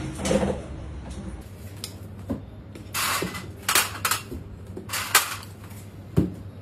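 Small steel idli cups knocking and clattering as steamed idlis are tapped out of them: a run of sharp metallic knocks, about a second or less apart, over a low steady hum.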